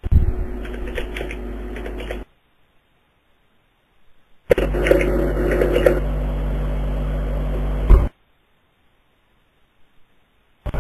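An open microphone on an internet voice chat, switched on twice for about two and three and a half seconds, carrying a steady electrical hum with light clicks and no words; each time it cuts in and out abruptly, with dead silence between.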